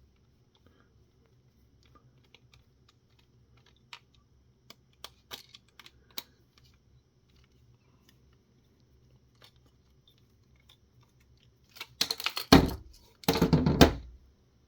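Scattered light plastic clicks from handling the opened keypad's parts, then two louder bursts of handling noise, each about a second long, near the end.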